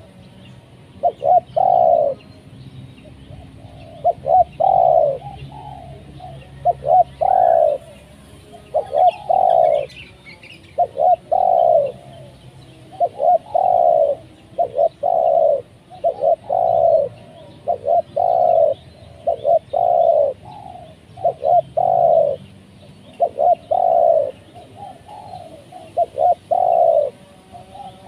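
Spotted dove cooing over and over, about one call every two seconds. Each call is two short quick notes followed by a longer coo. Faint chirping of small birds sounds behind it.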